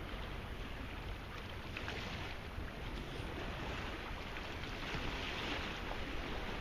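Steady outdoor wind noise on the microphone: a continuous rushing hiss with a low rumble underneath.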